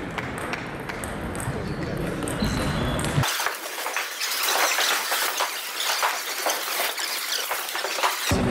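Table tennis hall noise with scattered small clicks of play. From about three seconds in until shortly before the end, the sound turns thin and hissy, with all its low end suddenly gone.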